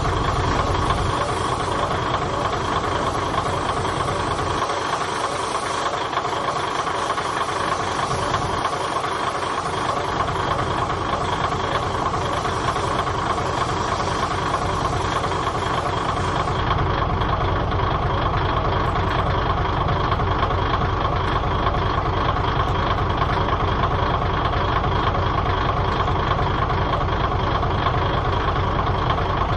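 Diesel railcar engine idling steadily, a low throbbing rumble with a steady hum over it; the low rumble grows stronger a little past halfway.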